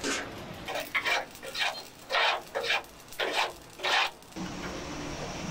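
A gloved hand scraping and sweeping inside the rusty steel housing of a straw reaper: about eight short rasping strokes at an uneven pace. Near the end they stop and steady background noise takes over.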